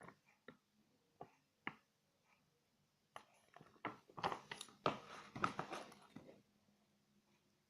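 Slime being stirred in a small cup: a few separate wet clicks at first, then a dense run of sticky squelches and crackles from about three seconds in until past six seconds.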